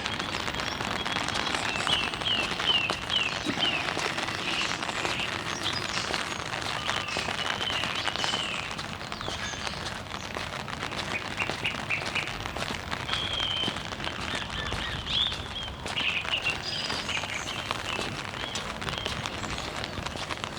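Rain falling steadily on an umbrella, with birds chirping in short runs of quick notes several times.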